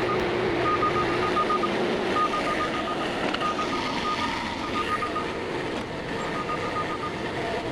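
Compact tractor engine running steadily, with a rapid high-pitched beeping that comes and goes in short runs.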